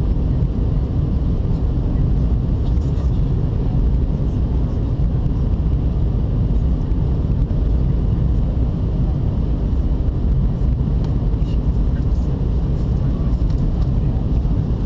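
Steady cabin noise of an Airbus A319 in descent, heard from a window seat over the wing: an even low rumble of engines and rushing air.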